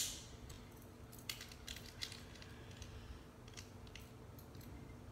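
Plastic Beyblade top and launcher being handled and fitted together: one sharp plastic click at the start, then a few faint scattered clicks and taps. A faint steady hum runs underneath.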